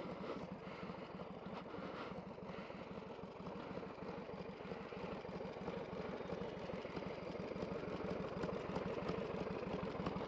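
Harley-Davidson Sportster's air-cooled V-twin engine idling with a steady, even pulse, growing a little louder near the end.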